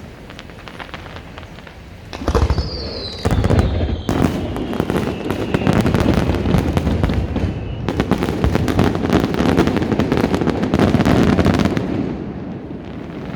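Fireworks display: a loud bang about two seconds in and another a second later, then dense crackling from many shells for about eight seconds, with a whistle slowly falling in pitch through the first part of the crackle. The crackling eases off near the end.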